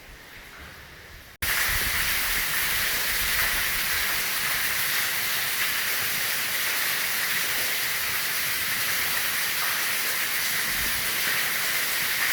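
Steady rushing hiss of water pouring or spraying, which starts suddenly about a second and a half in, after a much fainter hiss.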